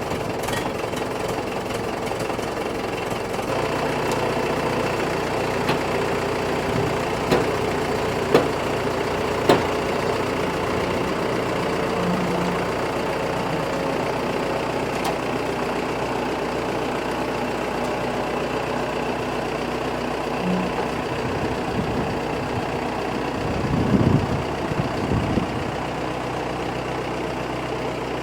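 Engine running steadily with a knocking, idling-type clatter. There are a few sharp clicks in the first third, and a deeper rumble rises briefly near the end.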